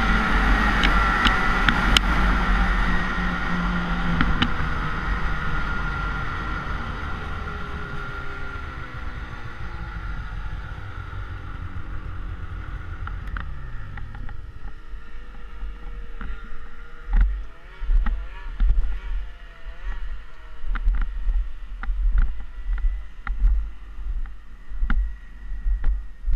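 Snowmobile engine running under way, then easing off, its pitch falling and dying away about halfway through. After that, a quieter stretch of irregular low thumps and rumbles.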